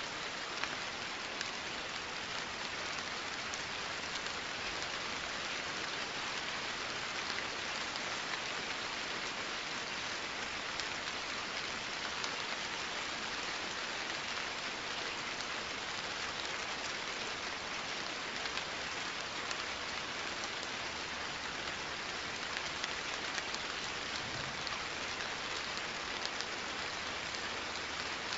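Steady rain falling: an even, unchanging hiss with scattered small drop ticks.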